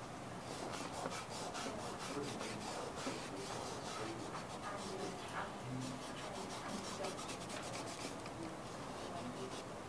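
A cloth rubbing back and forth over drawing paper, blending the pencil shading of a drawn eye. The strokes are quick and hissy, several a second, and grow fainter near the end.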